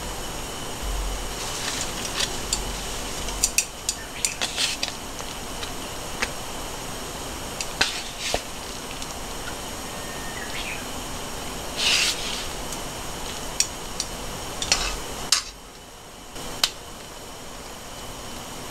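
Food-prep handling sounds: scattered light clicks, taps and brief rustles of a plastic meat tray and a stainless steel pot as sliced pork is moved into the pot, over a steady background hiss that drops a little about three-quarters of the way through.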